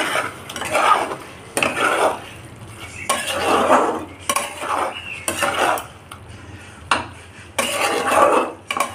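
Metal spatula stirring and scraping thick chicken curry around a metal kadai, in repeated strokes about once a second.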